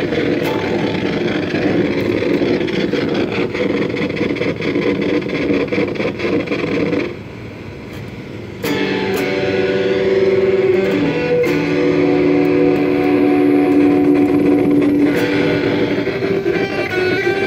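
Electric guitar played through a circuit-bent Joyo Classic Flanger pedal. The sound is a dense, noisy texture for about seven seconds, drops back briefly, then turns to held notes ringing through the effect.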